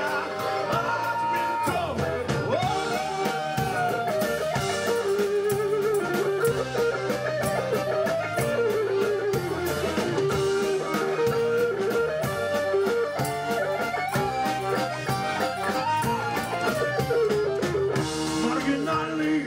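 Live rock band playing an instrumental passage: an electric guitar lead with bent, wavering notes over a drum kit beat and accordion.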